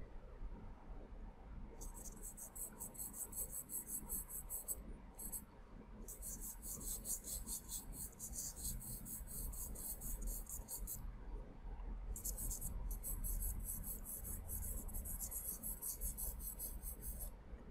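Charcoal pencil shading on layout paper: fast, even back-and-forth strokes make a scratchy hiss. It comes in three long runs, starting about two seconds in, with short breaks near five and eleven seconds.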